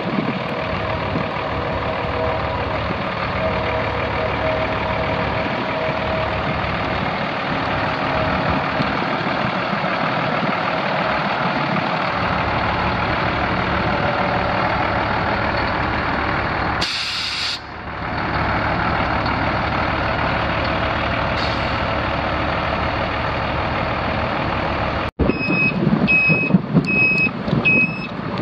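Ford FT900 truck's 8.3-litre six-cylinder Ford FD-1460 diesel running steadily, with a short hiss of air about two-thirds of the way through. Near the end a backup alarm beeps steadily, a little faster than once a second.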